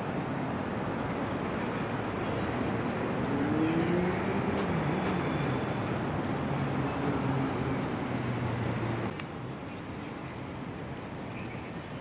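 Steady rush of a shallow river running over rocks, under a low engine hum whose pitch wavers and glides; the whole sound drops in level about nine seconds in.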